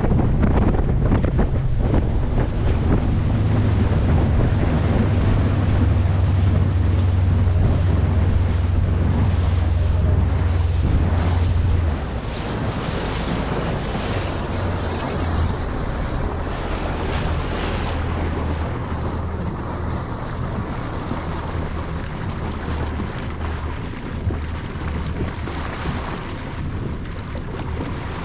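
A boat under way at sea: a steady low drone of the boat and rushing water, with wind buffeting the microphone. The low drone eases down a little about twelve seconds in and carries on.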